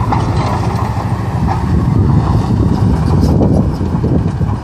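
Excavator engine running steadily, a continuous low rumble with wind buffeting the microphone.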